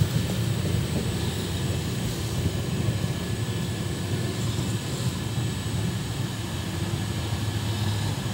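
Steady low rumble of an express train's passenger coach running on the rails, heard at the open doorway as the train pulls into a station.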